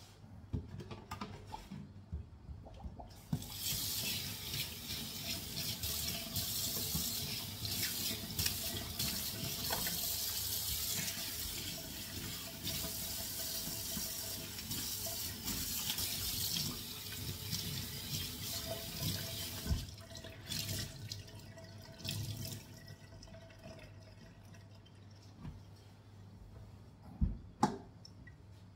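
Kitchen tap running into a stainless steel sink while it is scrubbed with a sponge; the water comes on a few seconds in and is turned off about twenty seconds in. Scrubbing and small clicks before and after, with two sharp knocks near the end.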